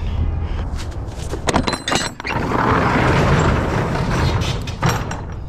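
Bags of mulch being handled and loaded: a few knocks and clatters, then a bag dragged with a rough scraping rustle for about two seconds, and another knock near the end.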